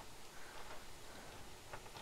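Faint light clicks and scraping of a hand-held can opener being worked on a small tomato-paste can that will not open.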